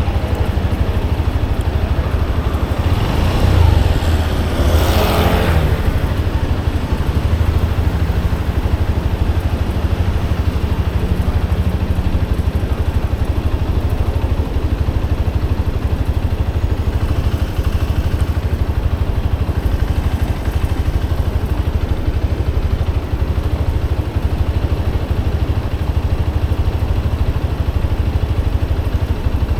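Motorcycle engine running steadily as it is ridden, a low continuous drone. A few seconds in, a louder whoosh swells and fades.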